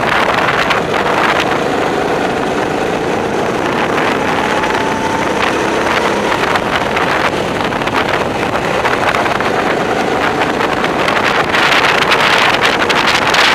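Go-kart engines running at speed, their pitch rising and falling a little, heard through heavy wind buffeting on a helmet-mounted microphone that grows stronger near the end.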